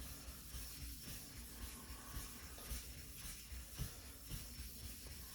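Faint gritty rubbing of a wet Shapton ceramic whetstone being lapped flat with light pressure.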